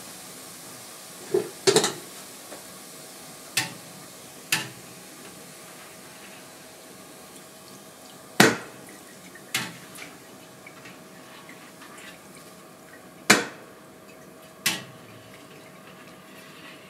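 Breaded oysters gently sizzling in a large pot of lard at low frying temperature, about 100 °C. Sharp metallic knocks come in pairs every few seconds as a wire skimmer strikes the stainless pot.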